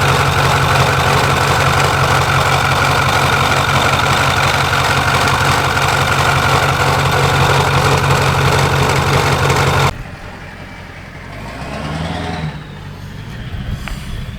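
Ford F350 turbo diesel engine running, with a steady high whine over its low drone: the noise from the belt-pulley system that a newly fitted pulley has not cured. About ten seconds in it cuts off, and a quieter engine is heard revving up and down.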